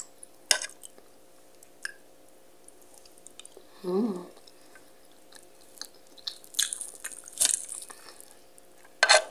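A person eating with a fork and spoon from a plate: scattered light clicks of cutlery on the plate and chewing. A short hum-like vocal sound comes about four seconds in.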